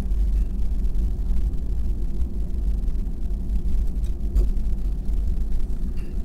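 Jet airliner rolling down the runway just after touchdown, heard from inside the cabin as a steady low rumble.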